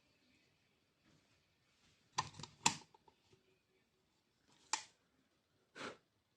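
A few sharp small clicks and taps from handling the battery pack and wires: a short cluster about two seconds in, then two single clicks. No motor starts; the car vacuum still will not run.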